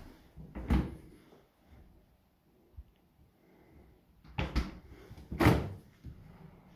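Fridge-freezer door being handled and pulled open: a sharp knock about a second in, two quick knocks past four seconds, and a loud thump about five and a half seconds in as the door swings open.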